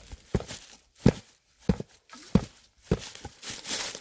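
Steel shovel blade chopped repeatedly into leaf-littered forest soil while digging out a shrub's roots: five sharp strikes about every two-thirds of a second, followed by a rustle of dry leaves near the end.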